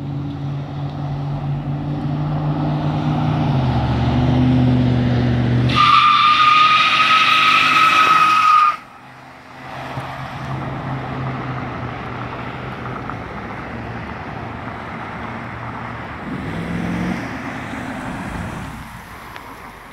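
Car engine pulling steadily, its note rising, then the tires squeal loudly for nearly three seconds and stop abruptly. Quieter engine and road noise follow.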